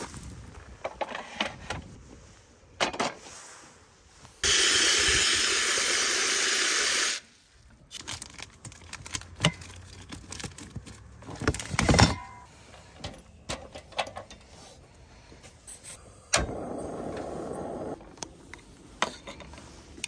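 Camp cooking gear being handled: scattered clicks, knocks and clatter of metal and plastic, with a sharp knock about halfway through. A loud steady hiss lasts about three seconds near a quarter of the way in, and a shorter, duller rushing sound comes near the end.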